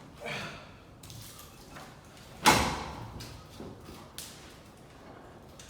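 Hard objects knocking and scraping as a makeshift climbing ladder is handled, with one loud bang about two and a half seconds in and a few lighter knocks around it.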